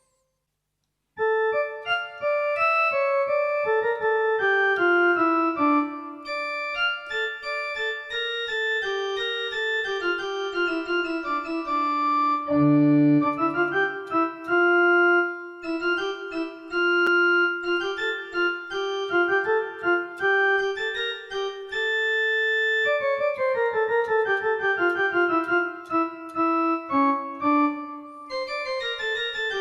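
Organ tone on a Casio keyboard with AiX sound, playing a melody line over sustained notes with a brief low note near the middle. It starts after about a second of silence.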